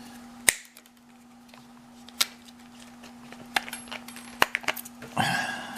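Keys being worked off a new padlock's retail packaging: a few sharp separate clicks and taps, then a short rattle of the keys near the end. A faint steady hum runs underneath.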